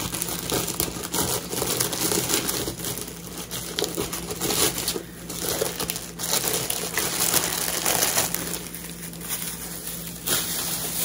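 Plastic shopping bag and packaging crinkling and rustling on and off as store-bought items are handled and unpacked.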